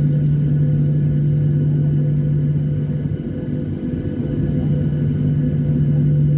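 Airliner engines running steadily: a loud, even low drone with a constant hum under a rumble, holding level with a slight dip about halfway through.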